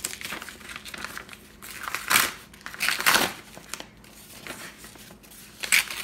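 A kraft paper mailing envelope being torn open by hand: paper ripping and crinkling in several short bursts, the loudest about two and three seconds in and another near the end.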